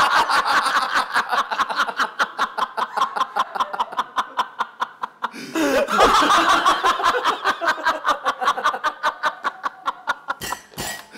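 A man laughing hard and uncontrollably: a long run of rapid staccato laugh pulses, about seven a second, broken by one breath about five seconds in, then a second run that fades near the end.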